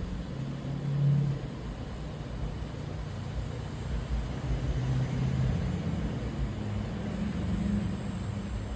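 Low engine rumble from a distant motor, with a steady hum that swells and eases a few times over a background of noise.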